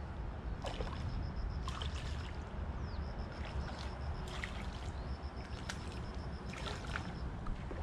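A hooked fish splashing and thrashing at the water surface in several short splashes while it is played on the line, over a steady low rumble of wind on the microphone. A faint, rapid pulsing high tone comes and goes.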